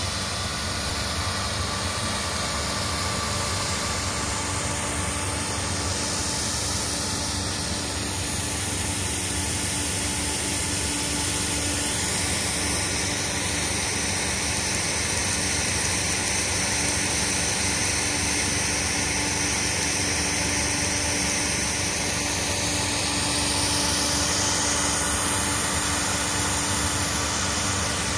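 Fan-type snow gun running: a steady rush of air and water spray over a constant fan hum. The high hiss swells and fades a few times.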